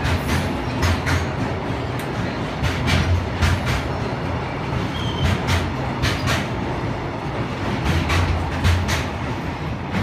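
Container wagons of a freight train rolling past close by at a steady speed. A continuous low rumble is broken by repeated groups of clacks as the wheelsets pass over rail joints.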